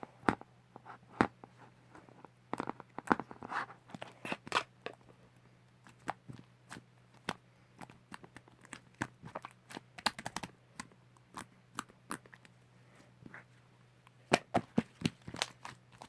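Slime being squished and poked by hand, making irregular sharp clicking pops, some of them in quick clusters.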